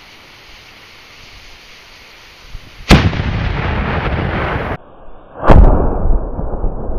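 Homemade black powder salute cannon, loaded with about 1500 grains of Pyrodex RS, firing: a sharp blast about three seconds in with a long rolling echo that is cut off short, then a second blast about two seconds later whose echo rolls on.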